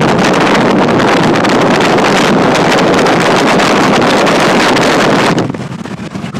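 Tornado's rear-flank downdraft wind roaring against a car, probably over 100 mph by the riders' estimate. The loud, even roar drops off sharply about five seconds in.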